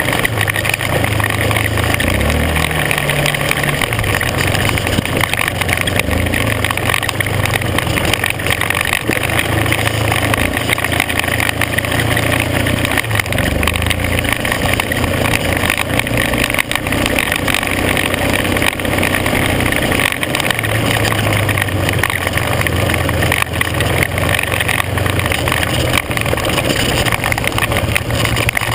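Off-road vehicle engine running steadily on a gravel dirt road, its pitch rising and falling slightly as the throttle changes. A constant rush of wind and tyre noise runs under it.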